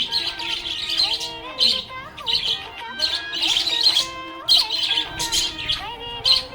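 Budgerigar chirping and warbling in rapid bursts of high chirps that come every second or so, over a background music melody.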